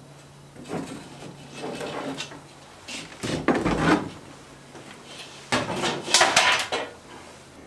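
Metal trim strips of a small boat's front deck framing being pried loose and lifted out, making a series of knocks, clatters and scrapes. The loudest come about halfway through and again near the end.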